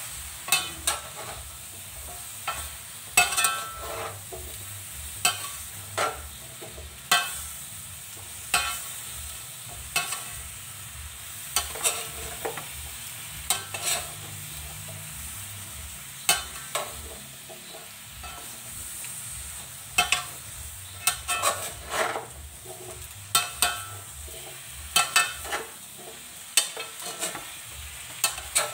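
Vegetables and chicken sautéing in a stainless steel pan: a steady sizzle, with a spatula scraping and knocking against the pan every second or so as the mix is tossed.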